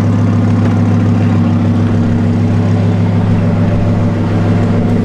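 Car engine running at a steady speed, a constant low hum that holds one pitch throughout.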